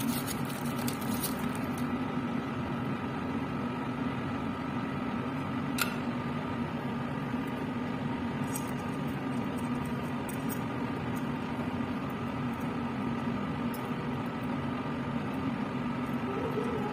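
Steady hum and rush of a laminar air flow cabinet's blower fan, with a few light clicks of glass tubes and metal forceps being handled, the sharpest about six seconds in.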